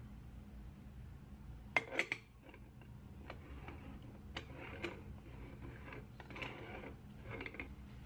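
Aluminium moka pot being put together by hand: a quick cluster of sharp metal clinks about two seconds in, the loudest sound, then a few single clicks and soft scraping and rubbing as the upper chamber is screwed onto the base, held in a towel.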